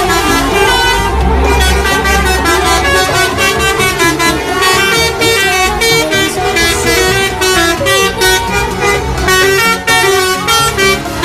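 Bus 'telolet' horns, multi-tone electric horns playing quick tunes of short stepped notes without a break.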